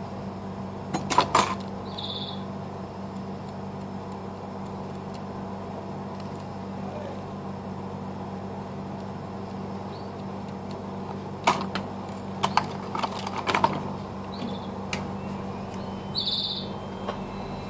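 Small phone parts and circuit boards being handled on a work table, clicking and tapping in two short clusters, over a steady electrical hum. Two short high chirps, one near the start and one near the end.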